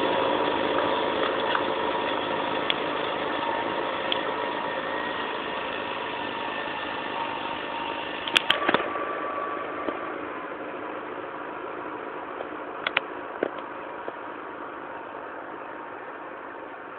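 Massey Ferguson 5470 tractor engine running steadily under load while pulling a plough, fading slowly as it moves away. A few sharp clicks come about halfway through and again about two-thirds of the way in.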